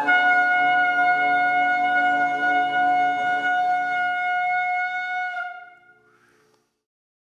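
A curved animal-horn trumpet of the shofar type blown in one long, bright held note that sags slightly in pitch as it fades out about five and a half seconds in.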